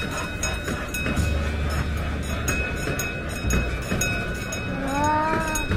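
Miniature amusement-park train ride running on its track: a low rumble that swells and fades, with a thin steady ringing tone above it. A voice rises and falls near the end.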